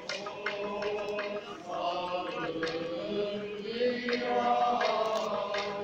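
A group of men's voices chanting an Orthodox church hymn together, held notes moving in pitch, with scattered sharp taps.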